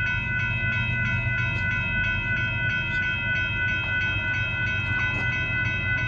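Union Pacific freight locomotive's multi-chime air horn sounding one long, unbroken chord, over the low rumble of the passing train.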